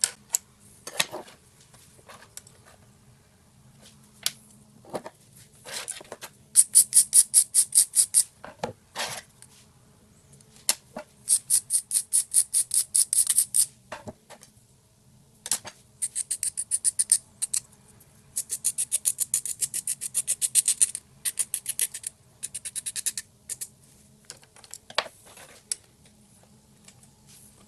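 Small hand tool working on the cup holder's replacement pins, trimming them to length: repeated bursts of rapid, evenly spaced scraping clicks, about eight a second and each one to two seconds long, with a few single clicks between, over a faint steady hum.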